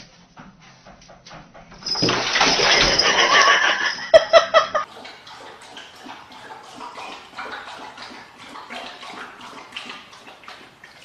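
Water splashing and running in a bathtub, loud for about three seconds and then cutting off abruptly, followed by quieter irregular noises.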